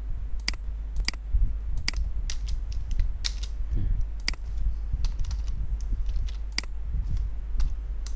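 Computer keyboard being typed on: irregular clicks of keystrokes, a few a second, over a steady low hum.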